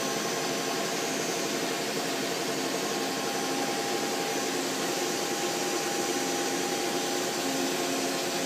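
Steady hum and hiss of a powered-up CNC turning center standing by, its spindle not yet running, with several faint steady tones in the hum and no change in level.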